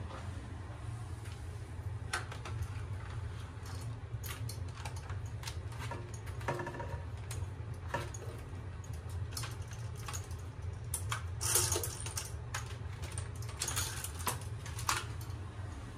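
Scattered light clicks and taps over a steady low hum, with a louder cluster of clatter about eleven seconds in and another a little before the end.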